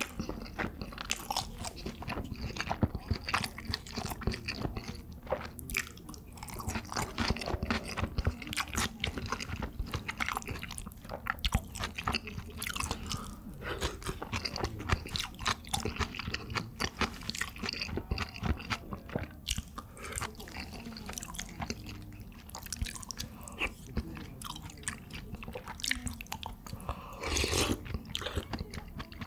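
Close-miked chewing with many sharp crunches, as pieces of crispy glutinous-rice tangsuyuk (sweet and sour pork) are bitten and chewed. Near the end there is a brief, louder slurp from a spoon.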